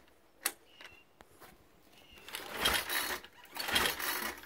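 Recoil pull-starter of a Troy-Bilt TB516EC lawn edger pulled twice, a little over a second apart, the engine turning over without yet catching. There is a sharp click about half a second in.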